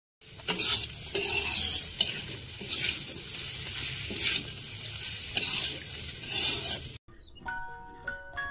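Spatula stirring and scraping fried tiwul (cassava rice) with water spinach around a sizzling wok, in repeated scraping strokes over steady frying hiss. It cuts off about seven seconds in, and a tune of plinked notes starts near the end.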